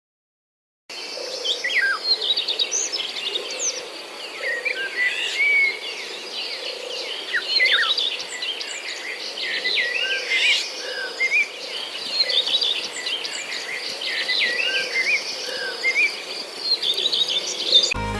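Many birds singing and calling at once: a dense chorus of short chirps and whistles over a steady high hiss, which starts suddenly about a second in.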